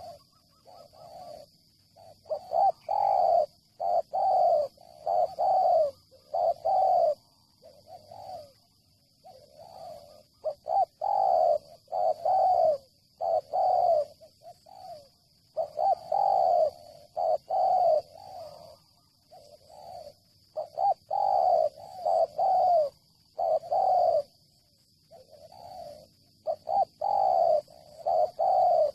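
Spotted dove (terkukur) cooing: runs of several mellow coo notes, repeated again and again with short pauses between runs.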